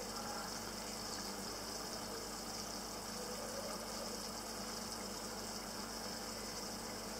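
Tomato-and-egg sauce simmering in a stainless steel pan on a gas stove: a steady faint hiss over a low, even hum.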